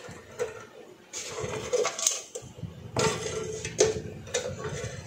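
Light metallic clicks and scraping from small metal parts inside a rice cooker's base being handled with a tool, about one click a second.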